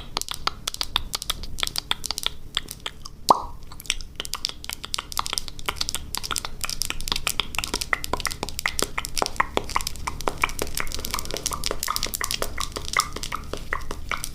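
Close-miked wet mouth clicking: a fast, continuous run of tongue and lip clicks, with one louder click about three seconds in.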